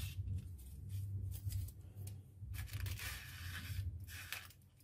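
Aluminium foil crinkling and rustling in short, irregular bursts as ice cream sticks are pushed through slits in the foil covering an ice cream mould, over a faint low hum.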